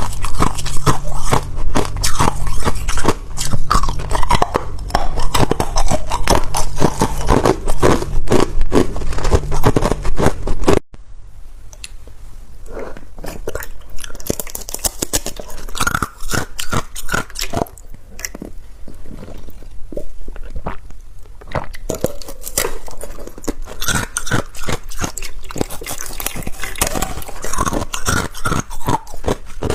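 Ice being bitten and chewed close to the microphone: a rapid stream of crunches, loud for about the first eleven seconds, then after a sudden cut, quieter and sparser crunching and chewing.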